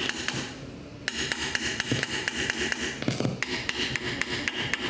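Repeated tapping knocks on a Pioneer receiver, testing its failing AGH003 amplifier IC, with scratchy audio from the speaker on the bad channel. The fault doesn't clear under the tapping.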